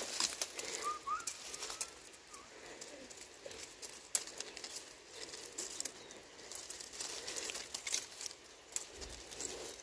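Leaves and twigs crackling and rustling as someone pushes through raspberry bushes to pick the fruit, with a few short bird chirps about a second in.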